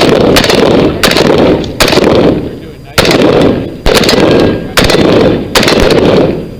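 Rifle fired at a steady pace, about eight shots at roughly one a second, each loud crack ringing on as it dies away.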